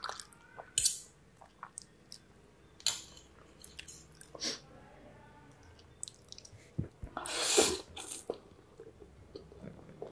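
Close-up eating sounds of a person chewing spaghetti, with scattered light clicks as a metal fork and spoon twirl noodles against the plate. About seven and a half seconds in comes a loud, brief slurp of noodles, the loudest sound.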